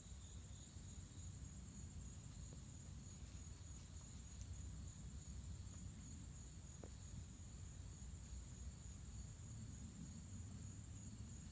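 A steady, high-pitched chorus of insects trilling, with a faint low rumble beneath.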